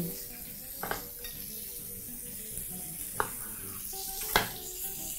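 Pork ribs sizzling steadily on a hot griddle, with three sharp knocks of a knife on a wooden cutting board as a lemon is sliced, the last one the loudest.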